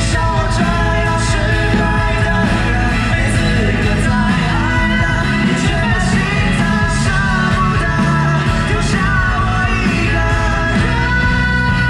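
Live pop band performance with male vocals sung into microphones, over drums and guitar.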